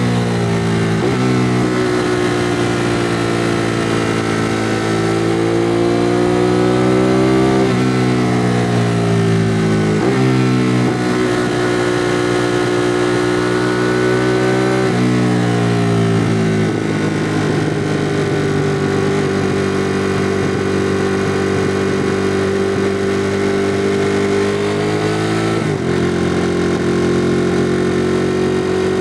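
2016 Ducati Monster 821's L-twin engine on its stock exhaust, running under way. Its pitch rises and falls with several sudden steps, as at gear changes, then holds steady for several seconds before another step near the end.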